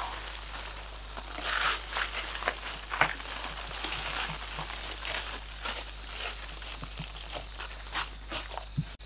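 Dry dead leaves crackling and rustling as they are scooped up by hand and scattered over leaf litter, in irregular handfuls.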